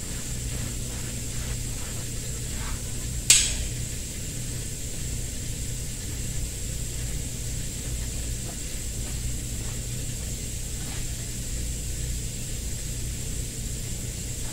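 A steady low machine hum with a thin high whine, under soft rustling of hands smoothing glued headliner fabric onto its board. One sharp click about three seconds in.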